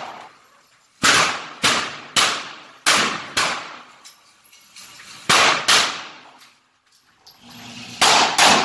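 Rifle shots fired in quick succession, each ringing off the walls of the indoor range: five shots about half a second apart, then a pair, then another pair near the end.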